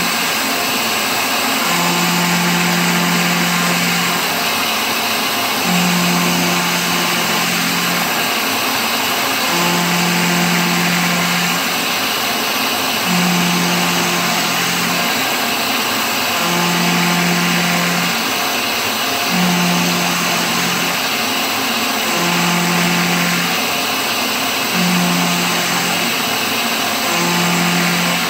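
CNC milling machine's end mill cutting a pocket in cast iron: a steady hissing machining noise, with a low hum that comes in for about two seconds and drops out again roughly every three and a half seconds.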